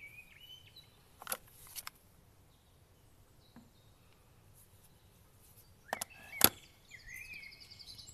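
Sharp clicks and knocks from handling a WE PX4 gas blowback airsoft pistol: two about a second in and two near six seconds, the last the loudest. Birds chirp in the background.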